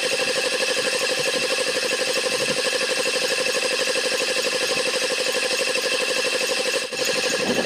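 Old piston air compressor running steadily with a fast, even pulsing rhythm, pumping up its tank; the gauge needle is climbing toward the newly raised 80 PSI cut-out. The sound briefly dips near the end.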